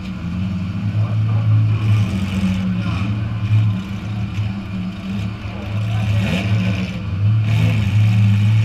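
Demolition derby car's engine running at a steady speed, heard from inside its stripped cabin, a low even hum that eases off briefly a few times.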